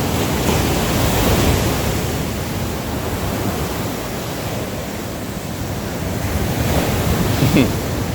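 Surf breaking on the beach: a steady wash of waves that swells about a second in and again near the end.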